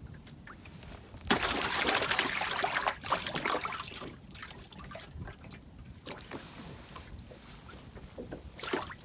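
Water splashing and trickling, starting suddenly about a second in and fading over two or three seconds, followed by small clicks and drips.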